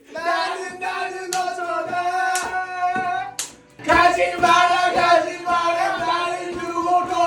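Singing in long held notes, with hand claps about once a second that come thicker in the second half.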